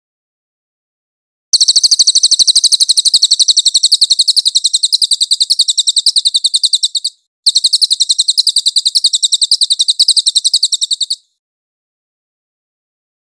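Crested jay (cililin) giving its high-pitched rattling call of very rapid, evenly repeated notes. It comes in two runs: a long one starting about a second and a half in, a brief break, then a shorter one that stops about two seconds before the end.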